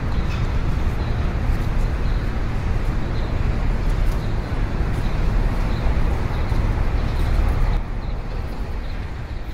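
Steady outdoor rumble with a strong low rumble and no distinct tones, easing off slightly near the end.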